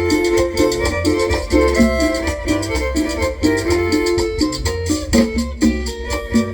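Chanchona music with a violin carrying the melody over plucked strings and a steady, even beat.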